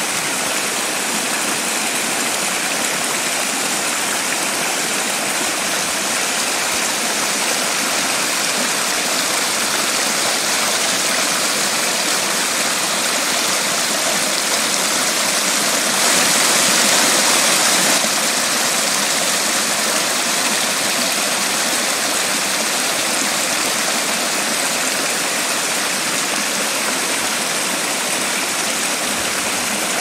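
Small forest brook rushing and splashing down a series of little rocky steps: a steady, unbroken water rush, a little louder for about two seconds around halfway through.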